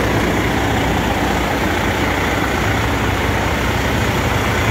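Detroit Diesel Series 60 inline-six diesel in a 2005 Freightliner Columbia running at a steady idle.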